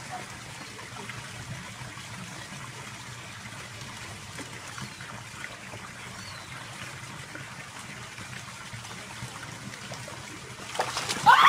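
Steady trickling of pond water. Near the end, a sudden loud, high-pitched cry that rises and then falls.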